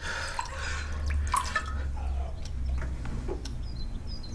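Vodka poured from a glass bottle into a small drinking glass: a short trickle and splash with small glassy clicks, mostly in the first second or two.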